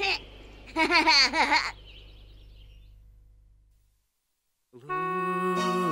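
A short burst of cartoon-voice laughter about a second in, then the sound fades to silence. Near the end, music begins with several held chord tones.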